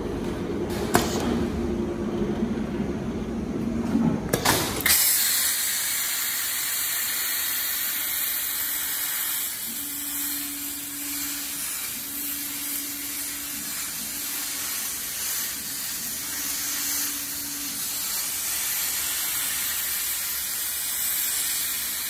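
CNC plasma cutting table: a low machine hum with a few clicks, then about five seconds in the plasma torch fires and hisses steadily as it cuts the steel sheet, with a faint low drone coming and going.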